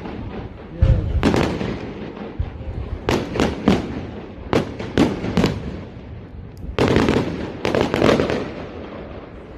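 Fireworks display: over a dozen sharp firework bangs in quick groups of two or three, spread through the whole stretch.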